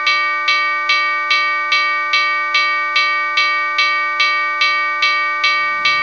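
Railroad crossing warning bell ringing steadily, about two and a half strikes a second, each stroke ringing on and fading: the crossing is warning of an approaching train.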